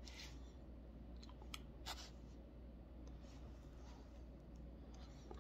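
Near silence: room tone with a low hum and a few faint, short clicks between about one and two seconds in.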